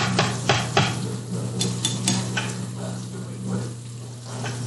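Breaded sea bass strips sizzling as they fry in hot oil in a pan, with a quick run of sharp clicks and scrapes of a utensil against the pan in the first half, over a steady low hum.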